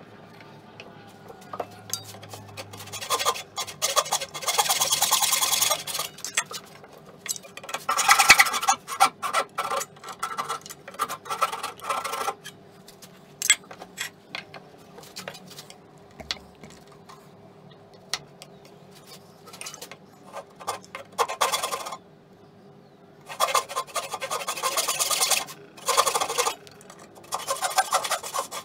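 Western backsaw cutting oak in several spells of quick rasping strokes, with knocks and clicks of tools and wood being handled on the workbench in between.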